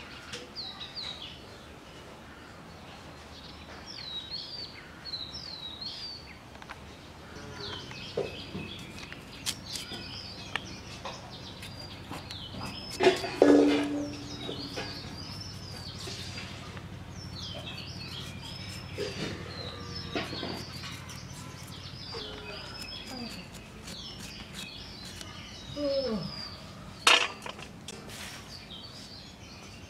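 Small birds chirping over and over. Scattered knocks and taps come from a carrot being cut with a hand blade over a steel bowl, with a louder clank that rings briefly about 13 seconds in and a sharp click near the end.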